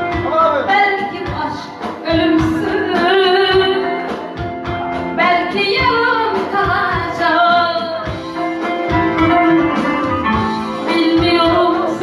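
A woman singing a song over an instrumental backing with a steady drum beat.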